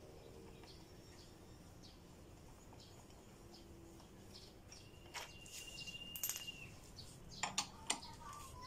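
Faint bird chirps repeating in the background. From about five seconds in, a thin high whistle lasting about a second and a half and a few sharp metallic clicks from a hand tool working the fork clamp bolts, the loudest clicks near the end.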